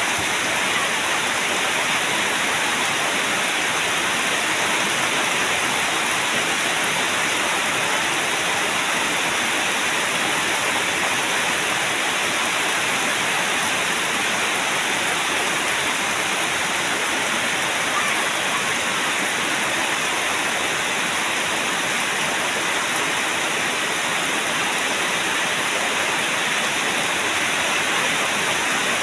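Heavy rain falling steadily on a flooded yard and its puddles, a constant even hiss.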